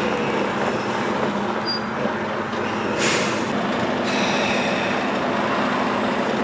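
Diesel engine of a stationary timber truck idling steadily, with a short hiss of released air from the air system about three seconds in.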